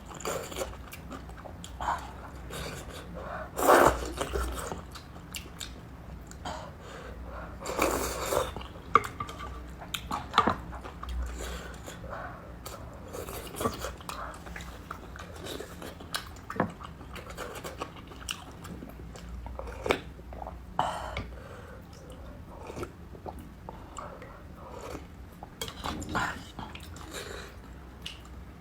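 Close-miked eating: chewing with many short wet clicks of the mouth, broken by a few louder slurps of noodles, the loudest about 4 and 8 seconds in.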